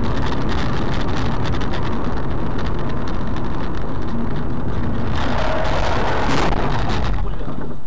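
Road and wind noise inside a moving car, picked up by a dashcam microphone: a loud, steady rushing rumble that turns harsher for a moment about five to seven seconds in.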